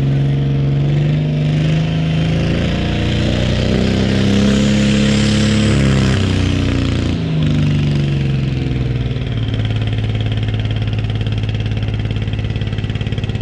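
High-horsepower diesel pulling tractor engine revving hard, its pitch climbing in steps for about six seconds, then falling away and settling into a steady lower drone.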